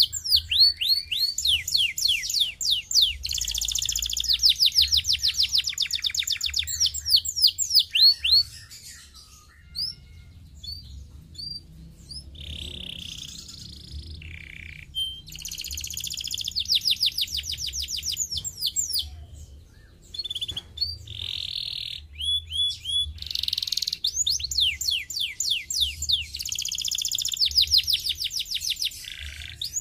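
Canary singing in fast trills of rapidly repeated sweeping notes, mixed with a few buzzy rolling phrases. The song breaks off twice for a couple of seconds.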